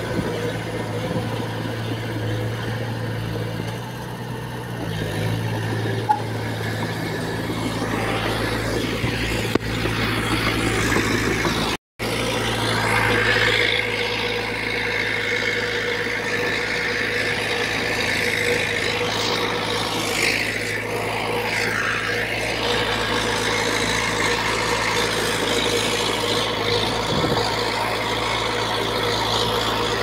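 Small crawler bulldozer's diesel engine running steadily while the machine pushes soil. The sound drops out completely for an instant about twelve seconds in.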